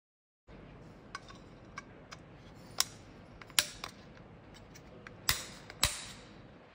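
Plastic lock ring being pressed into an aluminium wheel center-cap plate: light handling ticks, then four sharp clicks over the second half as the ring snaps into place on the plate.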